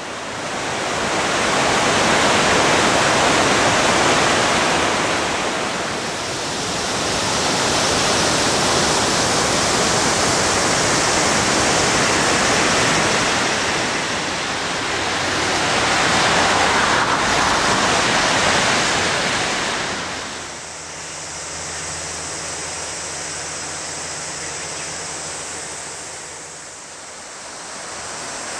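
A river in flood, its muddy water rushing in a loud, steady rush that swells and ebbs. About twenty seconds in it drops to a quieter rush with a faint low hum beneath.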